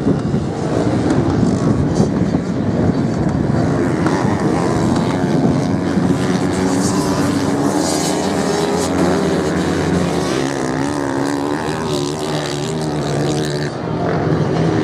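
Several dirt-bike engines running together as the motorcycles race across beach sand. Their pitch keeps rising and falling as the riders rev and change gear.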